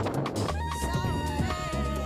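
Background music with a steady bass line, regular drum hits and a lead melody whose notes slide in pitch.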